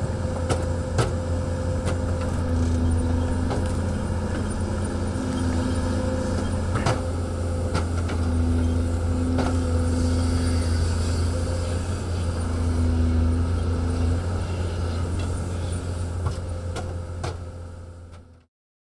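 Hyundai crawler excavator's diesel engine running steadily under load, with a higher hum that comes and goes as the machine works and scattered sharp clicks throughout. The sound fades out just before the end.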